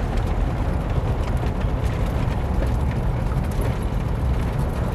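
Steady low rumble of a vehicle driving on a rough dirt road, heard from inside the cabin, with faint small rattles over it.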